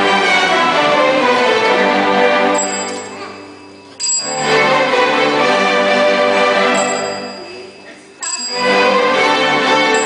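School string orchestra of violins, cellos and basses playing short musical fragments that break off and jump to a new passage, like channels being switched. One passage fades out, a new one starts abruptly about four seconds in, and another begins suddenly about eight seconds in.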